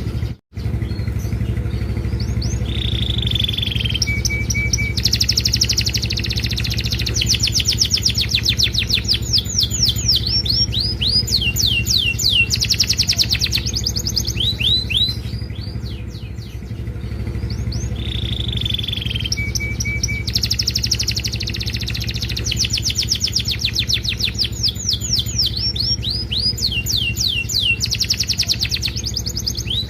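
Domestic canary singing a long, varied song of rapid trills and rising and falling glides, the same song passage coming round again about sixteen seconds later. A steady low hum runs underneath, and the sound cuts out for a moment just under a second in.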